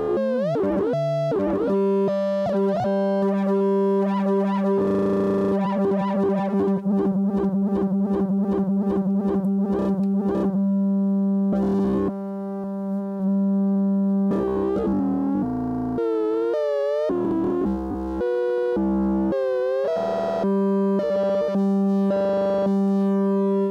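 Double Knot v3 synthesizer holding a sustained tone near 200 Hz under oscillator sync, its overtones sweeping and wobbling as the knobs are turned. About five to ten seconds in, the tone pulses rapidly. The sync amount is being varied through the VCA and slew, so the oscillator jitters in and out of syncing.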